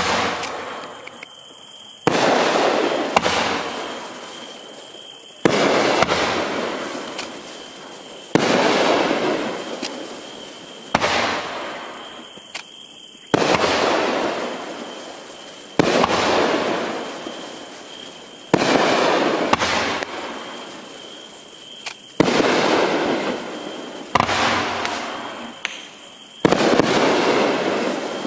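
A 500 g, 10-shot consumer fireworks cake firing its shots one after another, about every two to three seconds. Each shot is a sharp bang followed by a crackle that fades over a second or two, from the bursting strobe stars.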